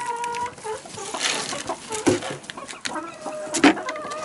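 Domestic hens clucking as they feed, with several drawn-out calls and a few sharp knocks, the loudest near the end.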